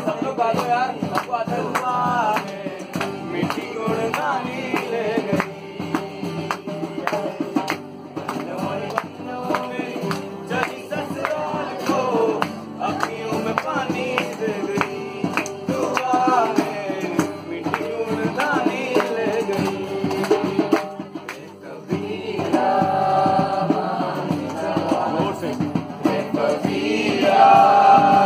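Acoustic guitar played while men sing along in a group. The singing grows stronger over the last several seconds, with long held notes near the end.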